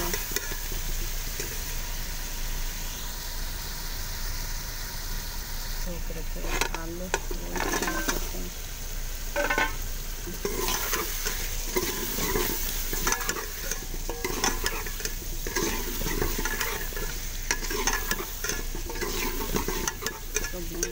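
Metal ladle stirring and scraping chicken and potato curry in a metal pot, over a steady sizzle of frying. The scraping strokes start about six seconds in and repeat irregularly.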